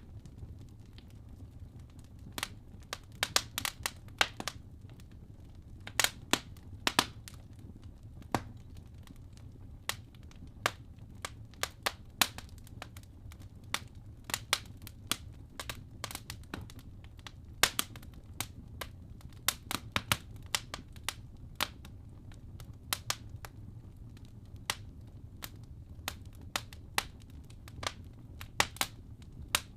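Wood fire in a fireplace crackling: irregular sharp pops and snaps, several a second at times, over a steady low rumble of burning logs.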